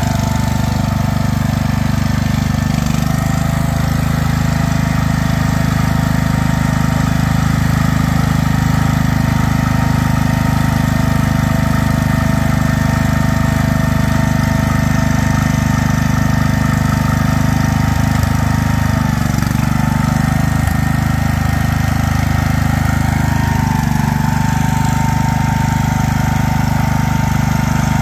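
Garden tractor's small engine running steadily while the tractor is stuck in deep mud, its pitch dipping about two-thirds of the way through and rising again a few seconds later.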